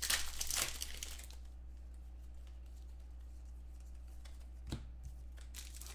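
Trading cards being handled: quick papery slides and rustles as cards are pushed across one another in the first second or so, then a single soft knock near the end, over a steady low hum.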